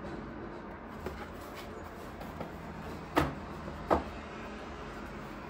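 A cardboard box insert set down on a wooden tabletop: two sharp knocks a little under a second apart, about three seconds in, after a few light handling clicks.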